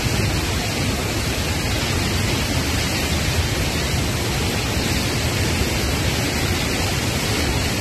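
Torrent of muddy floodwater rushing steadily through a washed-out road, a loud, dense, unbroken rush of water close to the microphone.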